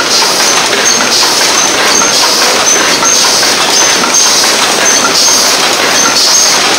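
Double-wall paper cup machine running: a loud, steady mechanical clatter that repeats in a short cycle about twice a second.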